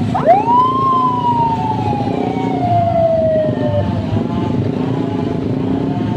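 A siren whoop: a tone sweeps sharply up about a quarter second in, then falls slowly and fades out after about three and a half seconds. Under it, a vehicle engine runs steadily.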